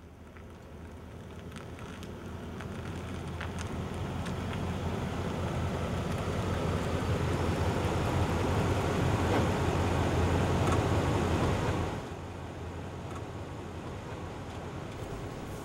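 Car driving: steady road and engine noise with a low rumble that swells gradually, then drops suddenly about twelve seconds in to a quieter, steady hum inside the car's cabin.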